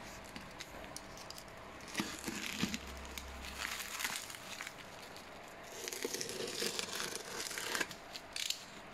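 Packaging wrap crinkling and tearing in scattered bursts as it is cut open and pulled off a boxed booster seat.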